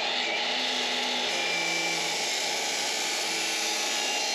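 Abrasive chop saw cutting through 1¼-inch square steel tubing: the motor at full speed and the cut-off disc grinding steadily through the metal.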